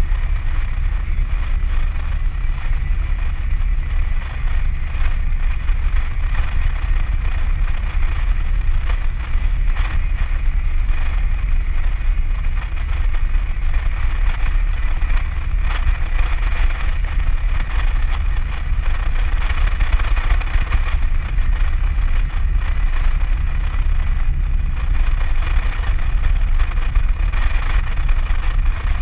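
Steady low drone of a Nissan Navara ute cruising at highway speed, heard from inside the cab: engine, tyre and wind noise blended without change.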